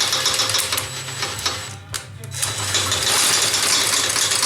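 MIG welder laying a weld, a steady crackling hiss in two stretches with a short break about two seconds in.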